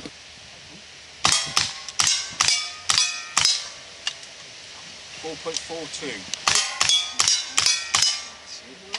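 Two quick strings of pistol shots at steel plate targets, about six and then about five after a pause of a few seconds, with a metallic ring from the plates after the shots.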